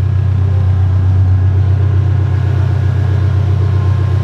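Toyota AE86 Trueno's 4A-GE twin-cam four-cylinder idling steadily on open headers, with no exhaust fitted.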